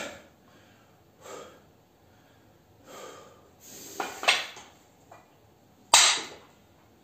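Heavy, forced breaths of a man straining through dumbbell reverse flyes, one hissing exhalation roughly every rep, late in a long 50-rep set. The breaths come harder toward the end, with a sharp, loud one near the end.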